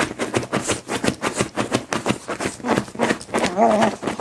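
Two beagles play-fighting: a quick, continuous run of scuffling noises, with a brief pitched vocal sound from the dogs about three and a half seconds in.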